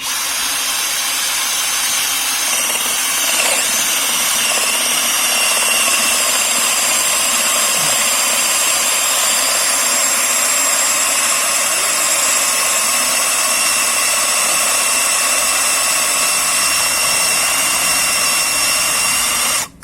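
Dewalt DCD796 cordless drill in drill mode boring a hole saw into a slab of lim ironwood: a steady high motor whine with the noise of the cut. It starts suddenly, runs for about twenty seconds and cuts off suddenly. The cut goes through smoothly.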